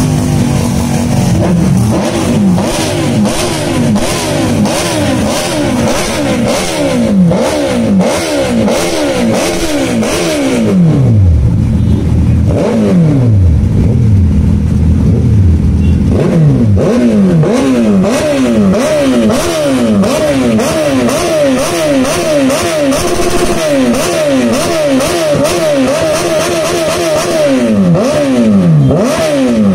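Superbike engines revved hard while parked, in quick repeated throttle blips that each rise and fall sharply, often overlapping. Around the middle come a few longer revs that fall away low.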